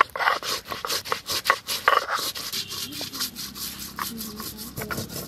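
Cumin seeds being ground with a stone roller on a wet, flat grinding stone (sil-nora). The sound is a gritty rubbing in quick back-and-forth strokes, several a second.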